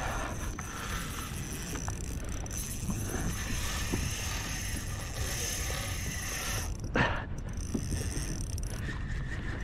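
Fishing reel being wound against a heavy hooked fish, a faint mechanical whirring and clicking over a steady low rumble of wind on the microphone. A short knock sounds about seven seconds in.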